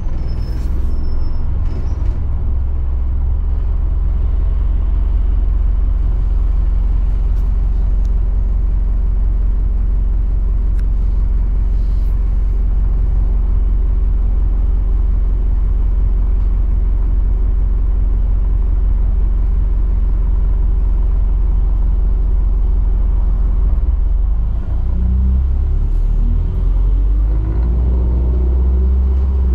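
ADL Enviro400 double-decker bus heard from on board: a steady low engine and road rumble while it drives. Near the end the engine note rises as the bus accelerates.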